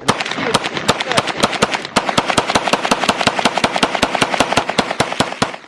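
Several guns emptying their magazines at once: rapid, overlapping gunshots, many a second and unevenly spaced, that stop abruptly near the end.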